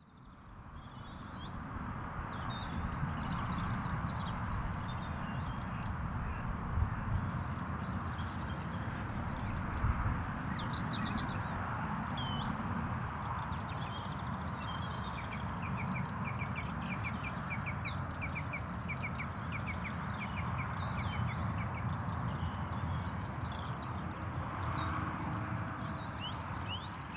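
Small birds chirping and singing, many short high chirps with a quick run of evenly repeated notes around the middle, over a steady low outdoor rumble. The sound fades in at the start and out at the end.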